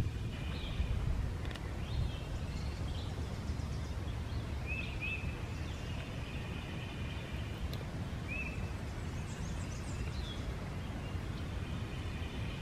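Outdoor ambience: birds chirping now and then in short, high notes over a steady low rumble.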